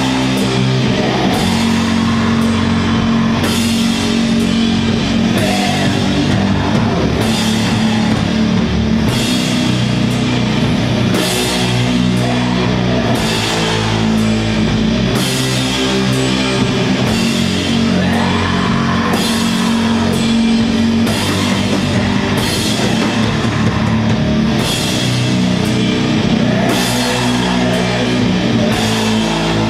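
Doom metal band playing live: heavily distorted guitars and bass hold low, slow notes while the drummer hits a cymbal crash every second or two.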